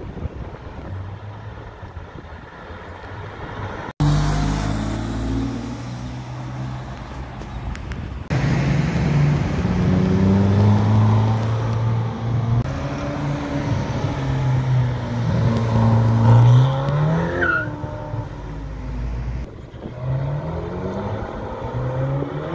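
Sports car engines running loud and accelerating, the engine pitch climbing in rising sweeps as the cars pull away.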